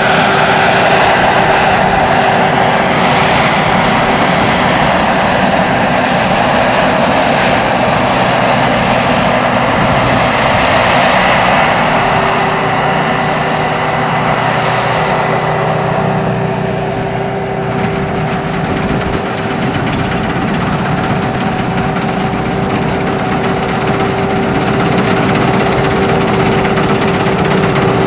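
Sakpattana SS-300 Black Bird combine harvester, with its five-cylinder 170 hp engine, running steadily under load along with its machinery, with a constant high whine over the engine.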